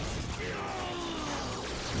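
Television action sound effects: an electronic whine falling steadily in pitch over about a second, over a dense low rumble, as the overheating Gigadrone robot is about to blow.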